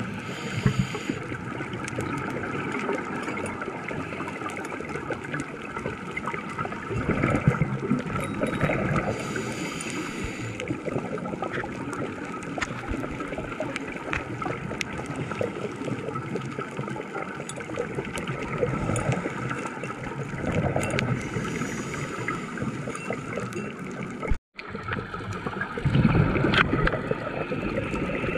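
Underwater sound picked up through a dive camera's housing: a steady wash of water noise with a fine crackle of clicks, and gurgling swells of scuba exhaust bubbles a few times. The sound cuts out for an instant near the end.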